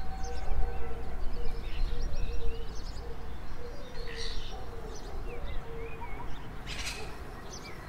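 Birds chirping, many short quick calls, over a steady low background rumble, with a brief hiss about seven seconds in.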